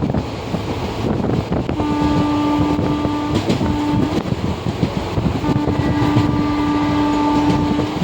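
Train running along the track: a steady rumble full of rapid knocks and clatter from the wheels on the rails. A steady pitched tone rises above it three times, the last and longest for over two seconds near the end.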